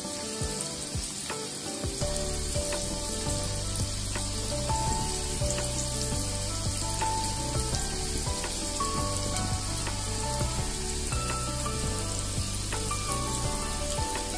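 Bitter gourd slices in a flour coating deep-frying in hot oil in a kadhai: a steady dense sizzle with small crackles as the oil bubbles round them. Soft background music comes in about two seconds in.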